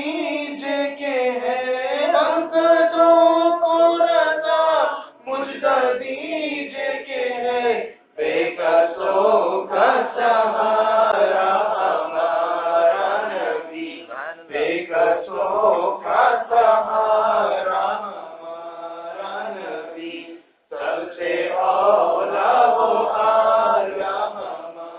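A group of male voices reciting an Urdu naat together in a chanted melody, unaccompanied, with short breaks between lines.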